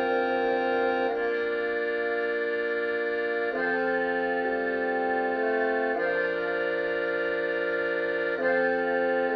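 Concert band winds playing a slow passage of held chords, the whole chord changing about every two and a half seconds.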